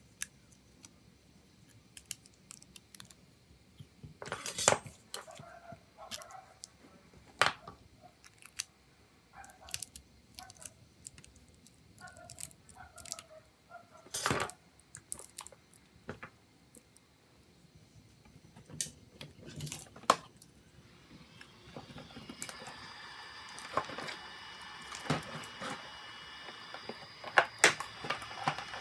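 Small tools and hard phone parts being handled: scattered sharp clicks and taps with some light scraping. From about three-quarters of the way in, a steady hiss with a few high steady tones joins them, a small powered tool running.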